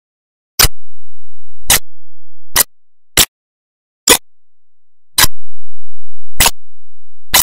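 About eight sharp clicks at uneven intervals, roughly one a second, with silence between them.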